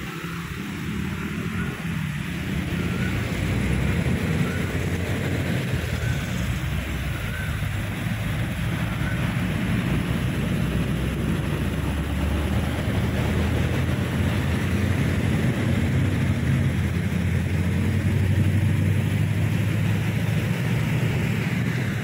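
Water pouring over a concrete canal weir: a steady rushing with a deep rumble, growing louder over the first few seconds.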